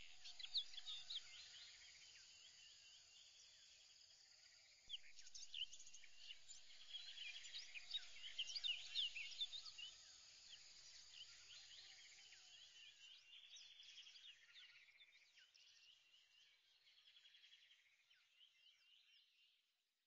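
Faint chorus of small birds chirping and trilling, many short quick calls overlapping. It grows busier a few seconds in, then thins out and fades away.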